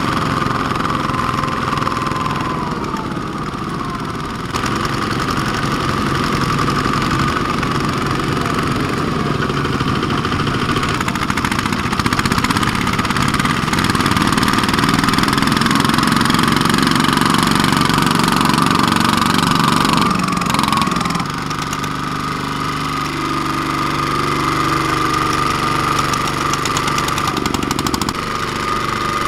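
Single-cylinder diesel engines of two-wheel walking tractors running steadily while hauling loaded trailers through muddy rice stubble. The engine sound grows louder partway through, then eases about two-thirds of the way in.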